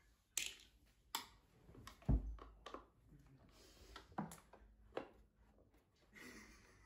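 Screwdriver work on the back of a home-theatre subwoofer cabinet: scattered sharp clicks and knocks of the tool and screws against the cabinet, with one heavier thump about two seconds in and light rubbing near the end.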